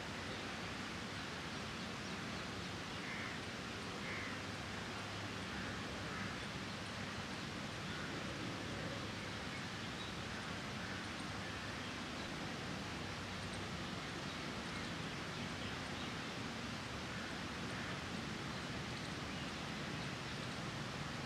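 Steady outdoor background hiss with a few faint, short, distant bird chirps, the clearest a few seconds in.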